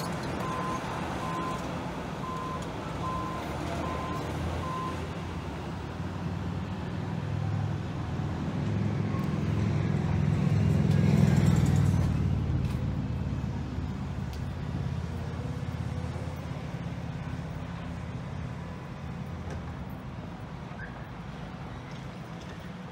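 A heavy vehicle's diesel engine running, growing louder to a peak about halfway through and then fading. A back-up alarm beeps about once a second during the first five seconds.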